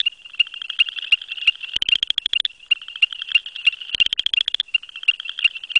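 Male southern chorus frog (Pseudacris nigrita) giving its advertisement call close by: a rapid trill of evenly spaced pulses lasting about two-thirds of a second, heard twice, about two seconds apart. Behind it runs a steady high-pitched chorus with regular ticks.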